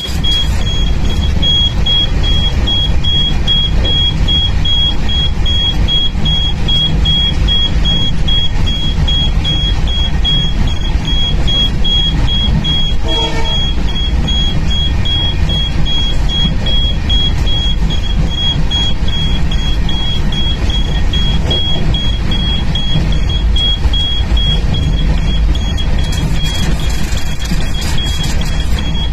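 Steady, loud low rumble of a moving vehicle, with a thin, high, rapidly pulsing tone running throughout. About thirteen seconds in, a short pitched tone like a horn sounds briefly.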